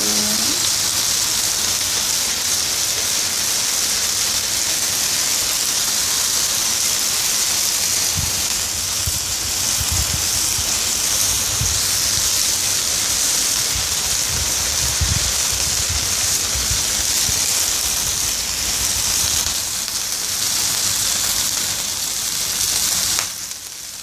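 Minced pork frying in oil in a steel wok: a steady sizzle, which drops off briefly near the end.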